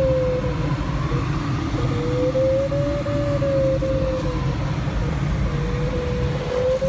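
A glider's audio variometer sounds a single tone that slowly slides up and down in pitch as the rate of climb and sink changes, fading out briefly twice. Under it is a steady low rush of airflow in the cockpit.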